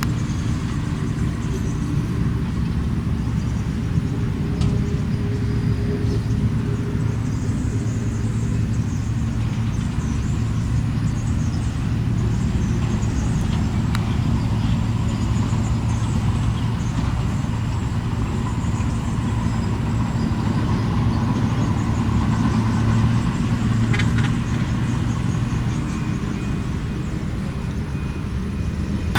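Heavy earthmoving machinery, a bulldozer or dump truck at work, running steadily with a low, even engine drone.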